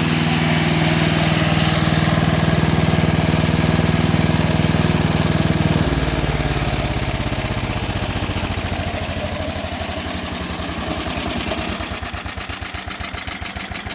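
Yardman SC-8 wood chipper's 8 hp Tecumseh engine running steadily at speed, then throttled back about six seconds in; it slows and settles into a slow idle with separate, evenly spaced firing pulses.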